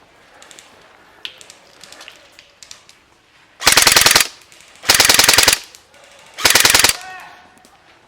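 Airsoft electric gun firing three short full-auto bursts, each about half a second long, a little over a second apart.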